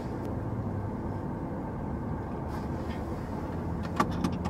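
Steady low hum of a large truck's engine idling, heard inside the cabin, with a few light clicks near the end.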